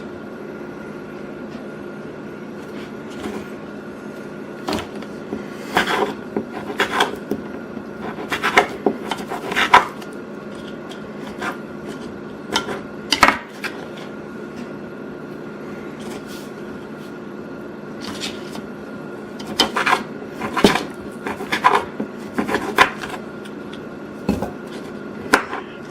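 Knife cutting cooked back bacon on a wooden cutting board: irregular knocks and taps in clusters, with a steady kitchen hum underneath.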